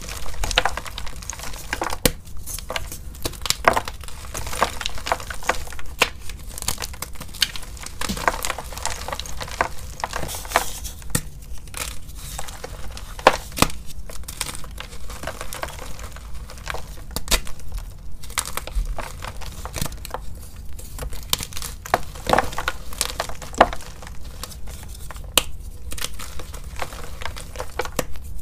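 Blocks of coloured, glittered gym chalk crushed and crumbled between the fingers: an irregular, continuous run of crunches and sharp cracks as the chalk breaks apart.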